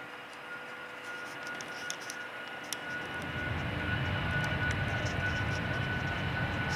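Airbus A330 MRTT's twin Rolls-Royce Trent 700 turbofans on the runway: a steady high whine over a rushing roar, with a low rumble that swells up about three seconds in as the aircraft rolls closer.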